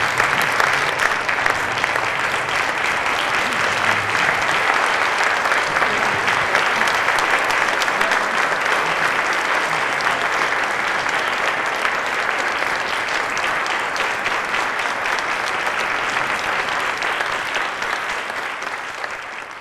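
Audience applauding steadily, fading out at the very end.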